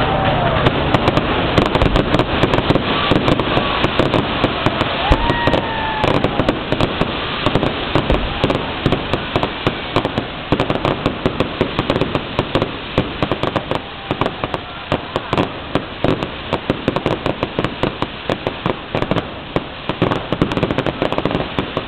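Fireworks display: a dense, rapid run of crackling pops and bangs, with a few whistling glides that rise and fall in the first several seconds.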